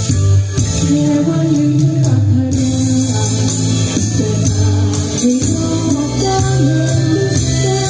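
A woman singing a devotional offering song into a microphone over backing music with a tambourine-like jingle.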